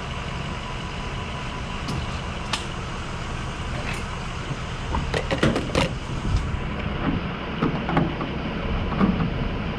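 Pickup truck's engine running steadily, with a run of clicks and knocks in the second half.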